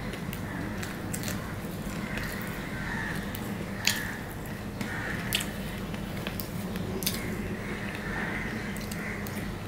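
Close-up eating sounds of a man chewing mouthfuls of rice and fried fish eaten by hand: wet chewing and lip smacks with many short sharp clicks, a few louder ones. A steady low hum runs underneath.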